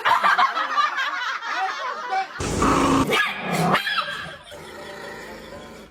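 A dog barking and yipping in quick, high calls, with a louder burst about two and a half seconds in.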